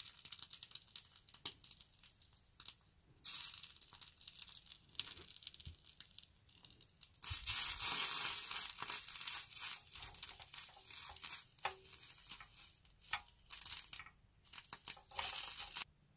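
Miniature wooden spatula scraping and stirring food in a tiny stainless-steel pot. The scratchy scraping comes in bursts with short pauses, is loudest in the middle, and stops abruptly near the end.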